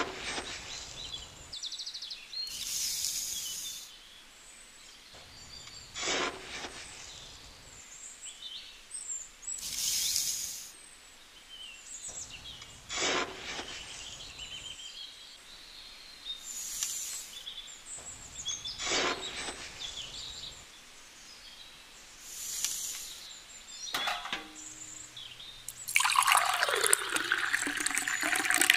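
A tiny spade scoops dry sand and cement from small buckets and tips it into a toy concrete mixer drum, a short scrape and a hiss of falling grains every few seconds. Near the end, water pours from a small bucket into the drum with a splashing pour, the loudest sound here.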